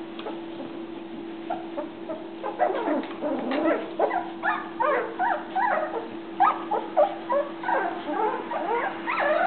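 A litter of two-week-old Rhodesian Ridgeback puppies whimpering and squeaking as they jostle to nurse, with many short overlapping calls that grow busier from about two seconds in. A steady low hum runs underneath.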